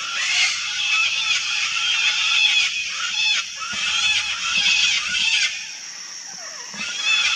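A flock of sulphur-crested cockatoos screeching, many rough, harsh calls overlapping. They ease off briefly about five and a half seconds in, then pick up loudly again near the end.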